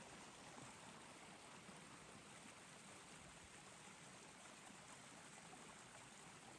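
Near silence, with a faint, steady hiss and no distinct events.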